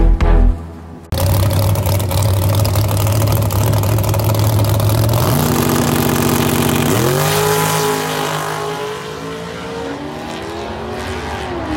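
598-cubic-inch big-block V8 of a drag-race Camaro running steadily on the starting line, rising in pitch about five seconds in, then launching about seven seconds in with a sharp rising note that bends and fades as the car pulls away down the strip.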